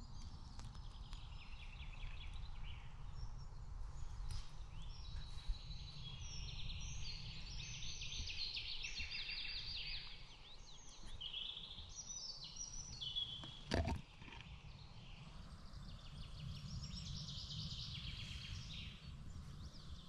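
Woodland songbirds singing, several overlapping songs with quick chirps and rapid trills, over a low rumble. A single knock stands out about two-thirds of the way through.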